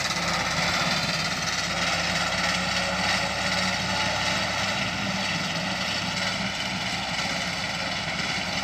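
Engines of hay-mowing machines running steadily under load, an even unbroken drone.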